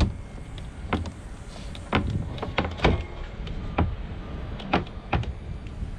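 Lewmar Ocean 65 hatch frame knocking against its marine-plywood base and the fibreglass deck as it is set into the cut-out and shifted into place: a string of sharp knocks and clunks, about seven, unevenly spaced.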